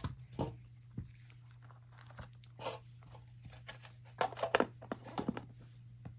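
Thin plastic wrapping being peeled and crinkled off a model locomotive by hand: scattered soft crackles, with a denser burst of crinkling about four to five seconds in.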